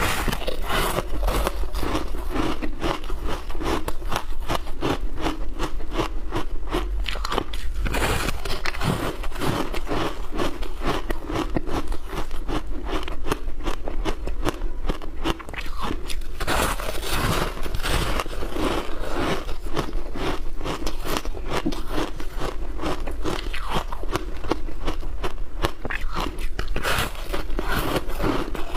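Close-miked crunching of ice being bitten and chewed: a dense run of crisp crunches with hardly a pause.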